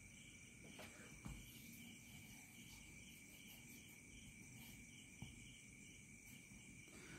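Near silence: faint background hiss with a thin, steady high-pitched tone and a few very faint clicks.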